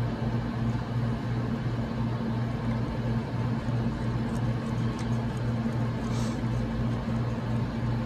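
Steady low hum from equipment or ventilation in the room. Around the middle there are a few faint light ticks from a small precision screwdriver turning a tiny connector mounting screw.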